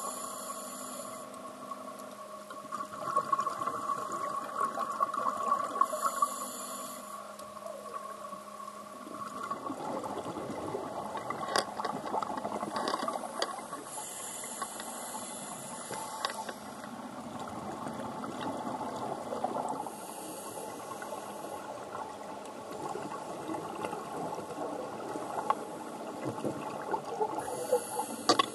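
Underwater sound of scuba diving: a regulator hissing at each breath every six to seven seconds, and bubbling exhaled air. A steady hum runs for the first third and then fades.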